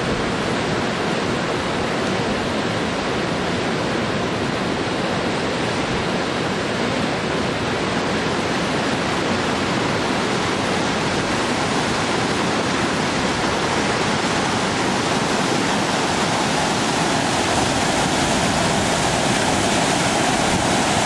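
A fast, silty mountain river rushing over its stony bed, a steady noise of water that grows a little louder near the end.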